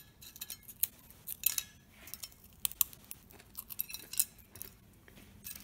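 Brittle freeze-dried fruit slices snapping and crackling as they are broken by hand, with light clicks of the pieces on a ceramic plate, in irregular sharp crackles.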